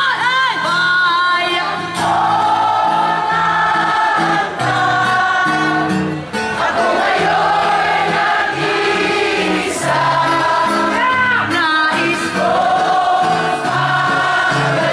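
Live amplified music: women singing into microphones over a band, with a large crowd singing along.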